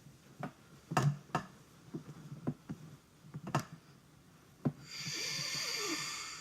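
A handful of separate light knocks and clicks, like small objects being handled and set down, then a breathy hiss lasting about a second and a half near the end.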